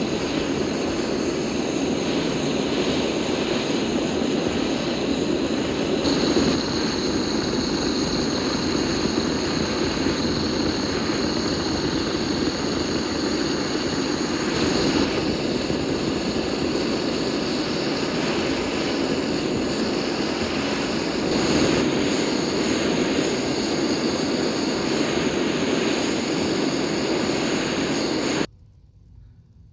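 A power tool or blower running steadily with an even rushing noise, switched off abruptly near the end.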